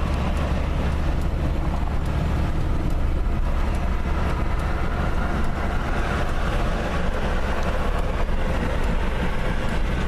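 Steady low rumble of engine and road noise heard inside a car's cabin while it creeps along in slow stop-and-go traffic.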